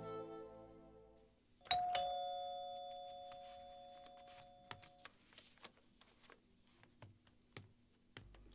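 A doorbell rings once, a two-note ding-dong stepping from a higher tone to a lower one about two seconds in, the notes ringing on for about three seconds. Background music fades out just before it.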